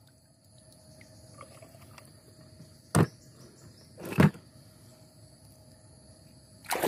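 Two short sharp knocks about a second apart: die-cast toy cars being handled and set down against the hard plastic rim of a paddling pool, over a faint steady tone.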